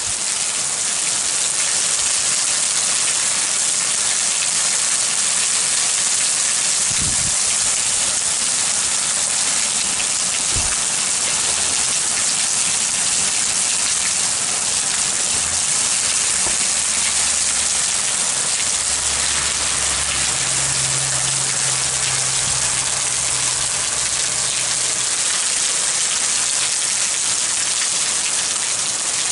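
Heavy downpour: a steady, dense hiss of rain falling on grass, soil and trees.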